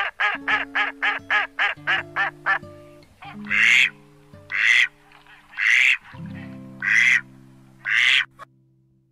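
Duck quacking: a fast run of short quacks for the first couple of seconds, then five loud single quacks about a second apart, over background music with sustained notes.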